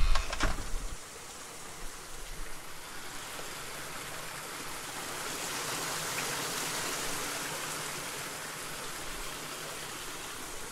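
A steady, toneless rushing hiss, like running water, that swells to its loudest in the middle and eases off near the end. The first second holds a low rumble and a few crackling clicks that stop abruptly.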